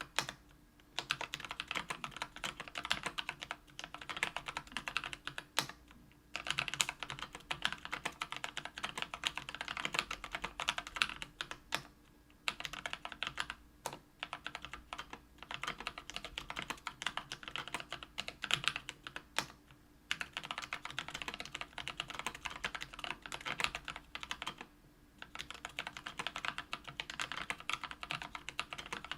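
Typing on a KBDfans Tofu 65% aluminium keyboard fitted with lubed Kailh Brown tactile switches (50 g) on an aluminium plate. Quick, continuous keystrokes are broken by short pauses every few seconds.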